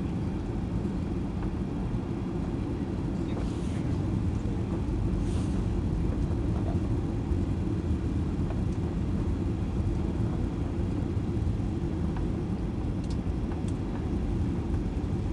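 Cabin noise inside a Boeing 737-800 on approach to land: a steady low rumble of the engines and rushing air, growing slightly louder about four seconds in.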